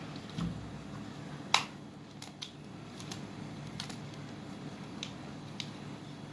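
Small sharp plastic clicks and taps from a hair dryer's switch and housing parts being handled and fitted together, about eight in all, with one louder click about a second and a half in.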